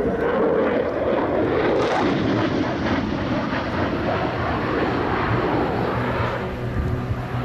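Dassault Rafale fighter jet flying past, its twin Snecma M88 turbofans giving a loud, steady jet roar that fades a little near the end.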